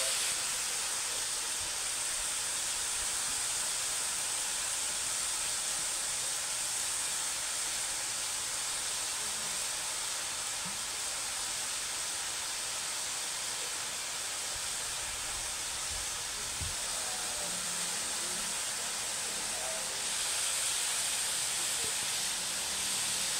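Chopped jackfruit and onion sizzling steadily in a hot aluminium wok, an even frying hiss that grows a little louder near the end.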